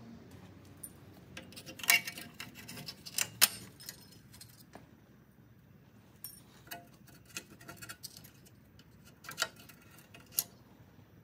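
Small metal clicks, clinks and scrapes as the parking brake shoe hold-down clips are pried off the backing plate with a pick and screwdriver. A few sharp clinks come about two and three and a half seconds in, and two more near the end.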